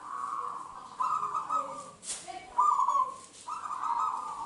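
Zebra dove (perkutut) cooing: four short trilled, rolling coo phrases in quick succession, about a second apart.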